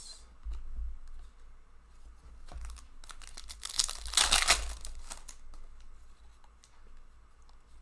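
A trading card pack's foil wrapper crinkling as it is handled, then torn open with a loud rip about four seconds in, followed by light rustling of the wrapper and cards.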